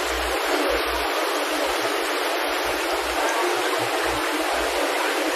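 Water pouring and splashing steadily into tanks of live shellfish in yellow baskets, with bubbling at the surface.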